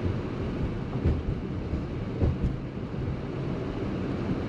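Road and engine noise inside a moving Maruti Suzuki Ciaz sedan, a steady low rumble, with two brief thumps about one and two seconds in.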